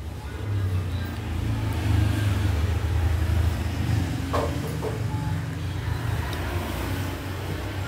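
Low, steady engine rumble of a motor vehicle running nearby, growing louder after about half a second and easing off near the end. Two faint short clicks come about halfway through.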